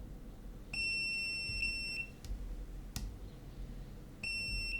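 Digital multimeter continuity beeper sounding a steady high beep for about a second and a half, with two brief dropouts, then a sharp click, and a second beep starting near the end. The beep means the probes are bridging connected points on the key fob's circuit board.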